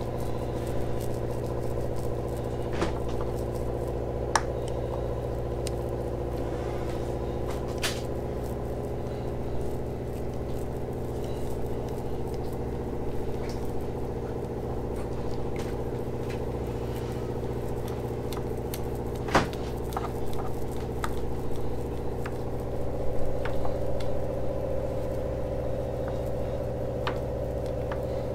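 Ribbed metal fiberglass consolidator roller worked back and forth over wet resin and glass cloth, giving scattered small clicks and crackles, over a steady mechanical hum. A sharp click comes about two-thirds through, followed by a few louder knocks.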